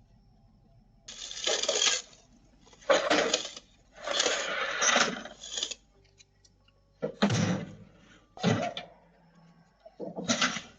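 Roofing materials being thrown and loaded, heard as about six separate clattering crashes one to two seconds apart.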